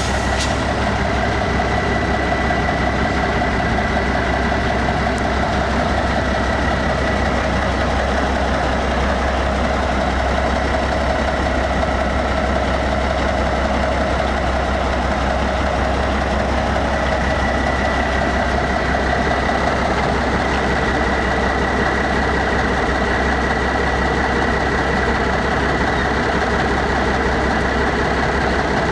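1984 Kenworth truck's V8 diesel engine idling evenly, with a thin high whine held above the engine note.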